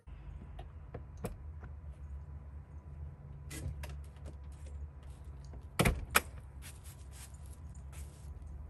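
Scattered clicks and knocks of someone coming out through an Airstream Basecamp travel trailer's side door, with two loud sharp knocks close together about six seconds in, over a steady low rumble.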